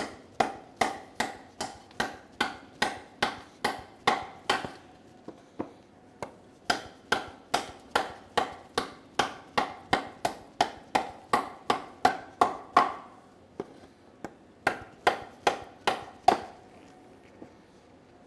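A steel combat knife blade chopping into a wooden 2x4, about three blows a second in three runs with short pauses between them. Each strike is a sharp knock with a brief ring.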